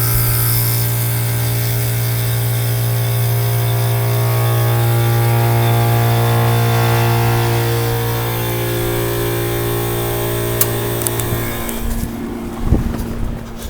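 Fedelcode Model 5A rooftop siren sounding a steady, many-toned drone that cuts off about twelve seconds in, followed by a few footsteps and knocks.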